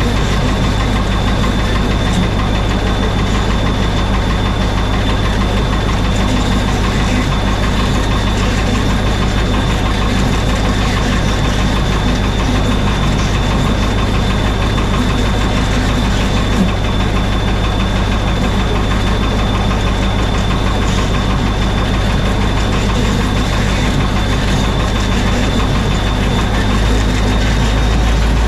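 Thiokol Spryte snowcat's engine running steadily, with a thin steady high whine over it. Near the end the engine note deepens and gets a little louder.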